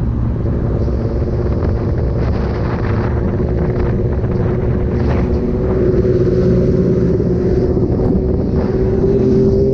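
Kawasaki ZX-10R inline-four running through an SC-Project exhaust while riding, the engine note steady and then slowly climbing in pitch over the last few seconds, with wind noise on the microphone.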